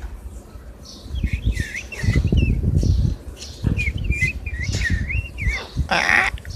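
Parrots chattering in quick warbling, wavering calls, with one harsh squawk near the end, over low rumbling noise.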